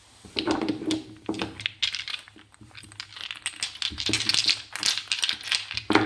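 Clicking and clattering of small hard objects being handled, over a steady low hum.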